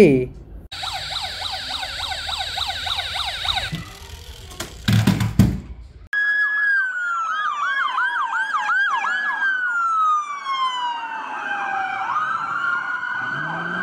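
Toy police car's electronic siren yelping, rapid repeated whoops for about three seconds, then a few knocks. From about six seconds a second siren sound plays: a slow falling wail with fast whoops laid over it.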